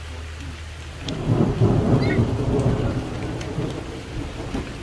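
A thunderclap rolls in about a second in, loudest for a second or so and then slowly fading, over steady rain.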